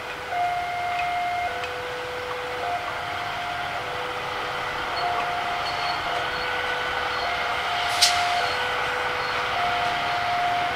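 CC 300 diesel-hydraulic locomotive running slowly through the station tracks, its engine and wheel noise steady under a two-tone electronic warning alarm. The alarm alternates between a higher and a lower note, each held about a second. There is a sharp click about eight seconds in.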